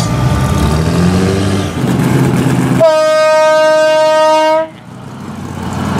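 A loud vehicle horn blowing one steady note for about two seconds and cutting off sharply, over the rumble of truck engines in the mud.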